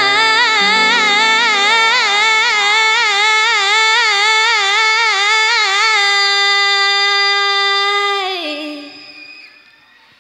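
A young female singer holds one long note with wide vibrato over sustained piano chords. The vibrato settles into a straight tone, then the note slides down and fades out about eight and a half seconds in.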